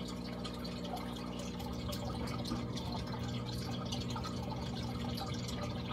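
Aquarium water trickling and dripping, a steady patter of many small irregular splashes over a constant low hum.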